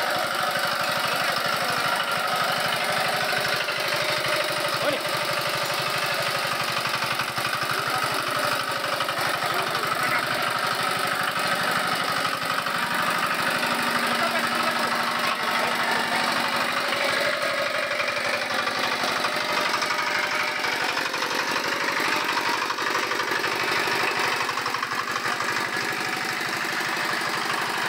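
Small single-cylinder engine of a single-wheel power weeder running steadily under load with a rapid, even knocking beat as its tines till the soil.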